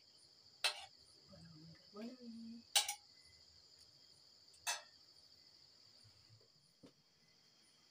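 A steel ladle clinks three times, about two seconds apart, against a steel pot and bowl as soup is served, over the steady chirring of crickets.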